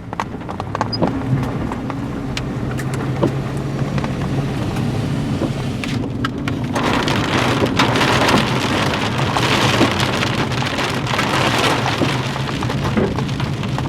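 Hail and rain hitting the outside of a vehicle over the engine's steady low hum. Scattered hailstone clicks come first, then about seven seconds in it becomes a loud, dense downpour on the body.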